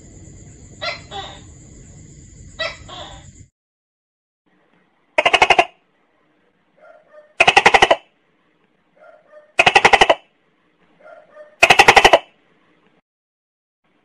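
Tokay gecko calling: four loud rasping calls about two seconds apart, each a quick rattle lasting about half a second and preceded by a faint short note. Before them, in the first few seconds, a few shorter quieter calls over a hiss and a thin high steady tone.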